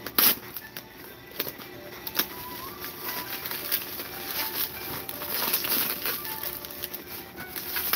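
Bubble wrap and plastic packaging crinkling and rustling as hands dig through a cardboard box, with irregular crackles and a sharp crackle just after the start.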